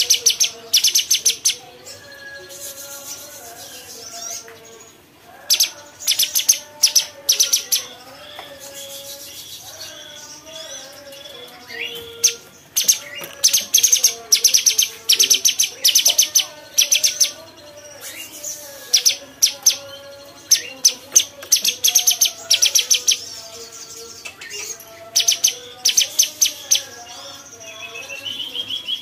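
Cucak cungkok song: loud bursts of rapid, high-pitched chattering trills, each a second or two long, repeating with short gaps, over a continuous lower warbling.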